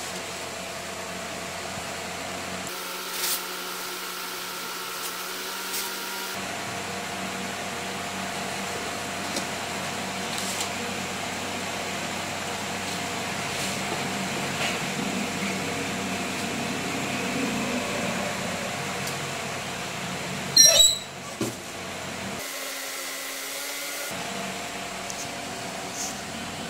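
Steady machine hum with a faint whine, and a few light clicks of handling. One loud sharp clack comes about three-quarters of the way through.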